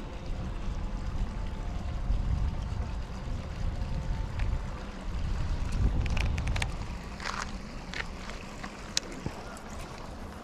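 Wind rumbling on the microphone, rising and falling, with a few short sharp clicks and taps in the second half.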